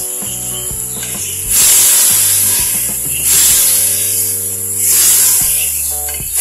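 Mutton, onions, tomatoes and whole spices sizzling in hot oil in a pressure cooker, swelling into three loud surges of hiss as a wooden spoon stirs the mix. Background music with a steady bass plays throughout.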